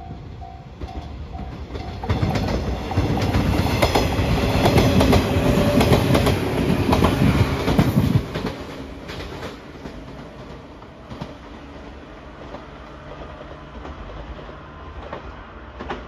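A 115 series electric train passing, its wheels clicking over the rail joints; it is loudest for about six seconds, then fades away. A level crossing bell rings about twice a second at the start.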